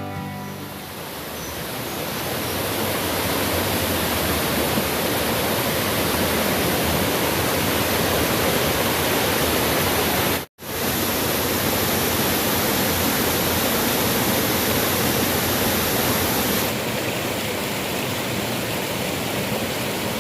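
Steady rush of falling water from a waterfall, with a momentary dropout about halfway through. Near the end the sound becomes slightly duller.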